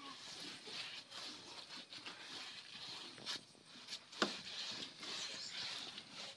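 Wet cow-dung plaster being smeared across a floor by hand: soft, irregular swishing and patting, with one sharp knock about four seconds in.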